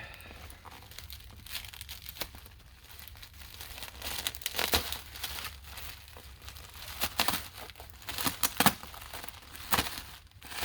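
Bubble wrap and plastic packaging being handled and pulled open by hand, crinkling and rustling in irregular crackles, with a few louder ones in the second half.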